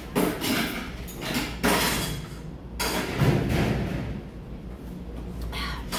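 A few short knocks and bumps, such as clatter in a busy restaurant, over a steady low hum.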